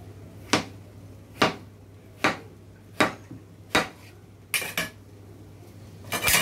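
Large kitchen knife chopping through a peeled courgette onto a plastic cutting board: five sharp knocks, a little under one a second. A few lighter clicks follow, then a louder clatter near the end.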